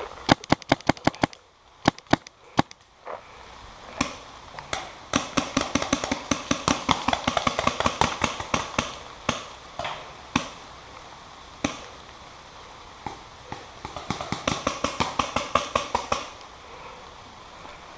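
Paintball markers firing rapid strings of shots, about eight pops a second, in several volleys with short pauses between them.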